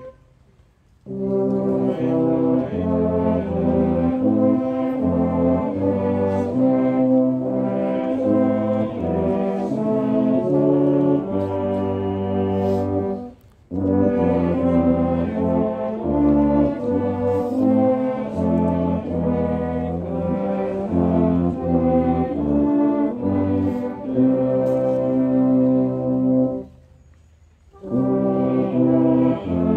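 Brass band playing a slow piece in full chords, with a bass line under the upper parts. It goes in long phrases separated by short breaks: about a second in, about halfway through, and a couple of seconds before the end.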